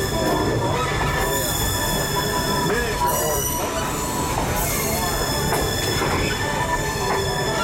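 Diesel locomotive running along the track, heard from inside its cab: a steady low rumble of engine and wheels, with high-pitched wheel squeal that comes and goes several times.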